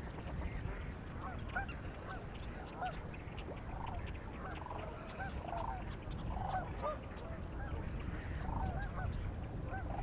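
A flock of geese honking, many short calls overlapping and scattered throughout, over a low steady rumble.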